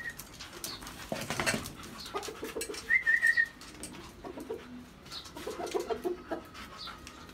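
Pigeons cooing softly several times, with a clatter about a second in and a short high whistle about three seconds in.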